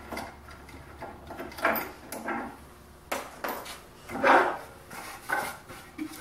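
Wooden sanding-disc table being dismounted from the arms of a combination belt-disc sander and lifted away: a series of short wooden knocks and scrapes.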